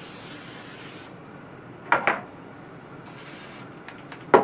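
Kitchen handling sounds while cookie dough is set out: a steady hiss that cuts off about a second in and returns briefly, with a sharp knock about two seconds in and a louder knock near the end.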